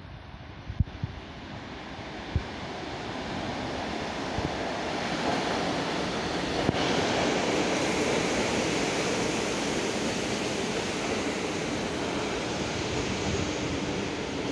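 ER9M electric multiple unit coming into the platform: rolling noise that grows over the first five seconds or so, then a steady loud rush as the cars pass close by. A few sharp knocks sound in the first couple of seconds.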